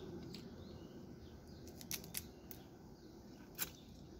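Eating cooked crab by hand: a few separate faint clicks and crackles as the shell is picked apart and the meat is eaten, over a steady low background hiss.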